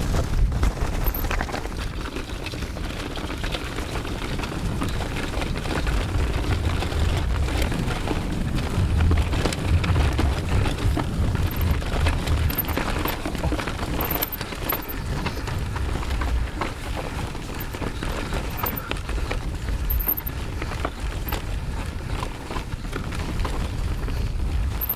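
Mountain bike riding a trail, heard from a camera on the bike or rider: heavy wind buffeting on the microphone, with constant rattling and knocks from the bike over rough ground.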